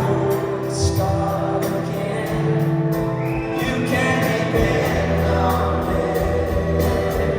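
Live rock band playing through a PA system: held chords, bass and a steady drum beat, with sung vocals.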